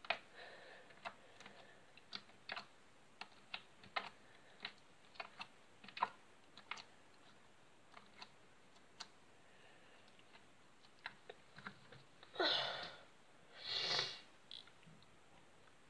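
Slime being squeezed and poked into a mesh slime ball by hand: irregular small sticky clicks and pops, about two a second, with two longer, louder noises near the end.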